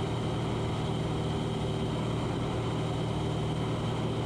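Cessna 182's piston engine and propeller droning steadily in cruise, heard from inside the cabin.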